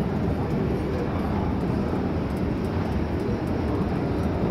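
Steady low rumble of a long escalator running.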